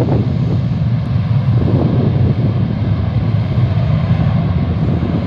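Boeing 727's jet engines at takeoff power as the airliner climbs away: a loud, steady low rumble.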